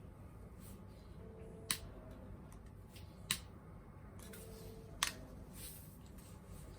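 Small wood fire crackling: three sharp pops, about a second and a half apart, over a low steady background.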